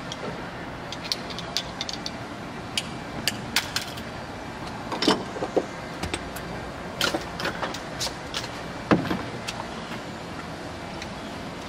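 Irregular light clicks and knocks, about a dozen, over a steady background hiss, with a few louder knocks in the middle and later part.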